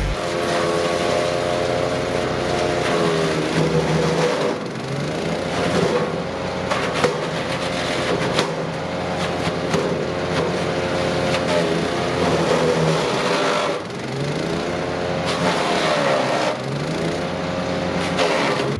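DK2 wood chipper's gas engine running under load, its pitch dipping and climbing back three times as it bogs and recovers, with crackling from the chipping.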